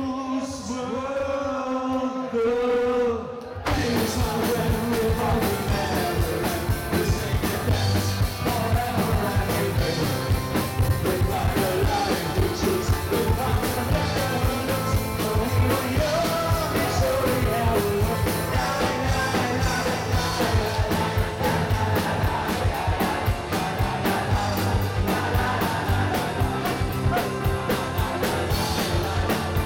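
Live rock cover band. A male singer sings almost alone for the first few seconds, then about three and a half seconds in the full band comes in with drums, bass and guitar, and the singing carries on over a steady beat.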